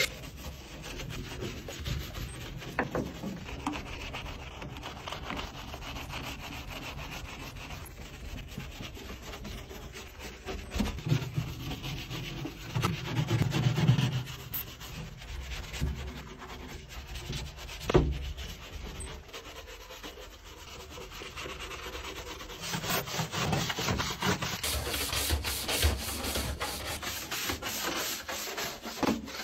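Stiff brushes scrubbing the foam-covered metal of a van's cargo area: a hand brush works over a wall panel, then a push broom scrubs the floor in quick repeated strokes near the end. There is one sharp knock about halfway through.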